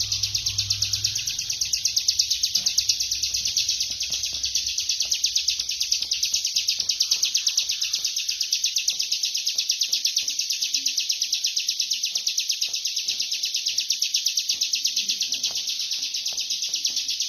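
Ciblek kristal (bar-winged prinia) singing 'ngebren': a very fast, unbroken trill of evenly repeated high notes, held without pause.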